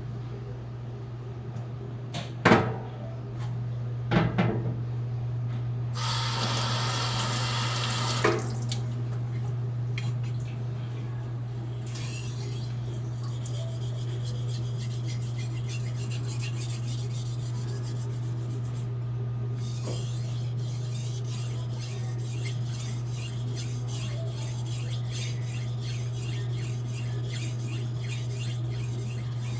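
Two knocks, then a tap runs briefly, likely wetting the whetstone. After that comes a long series of rapid, even strokes of a hand-forged Blue #2 steel knife being sharpened on a waterstone. A steady low hum runs underneath.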